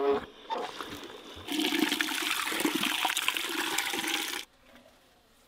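Water from an outdoor spigot and hose pouring into a stainless steel stockpot and splashing over the glass canning jars inside it, filling the pot to heat the jars. The flow is loud for about three seconds and then cuts off suddenly.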